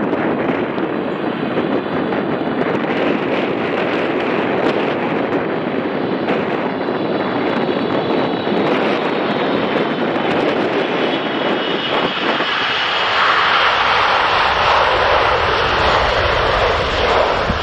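Boeing 777-300ER's GE90 jet engines running at low power through a close landing, a steady rushing jet noise. About twelve seconds in, the sound swells louder with a deeper rumble as reverse thrust spools up after touchdown.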